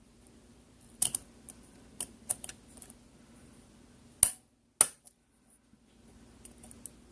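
Sharp metal clicks and snaps from working at the stiff, extra-thick retaining clip on a Sargent rim cylinder lock, a few light clicks early and two louder snaps a little more than halfway through.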